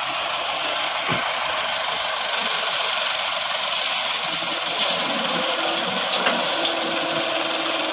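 Massey Ferguson 385 tractor's diesel engine running steadily at idle.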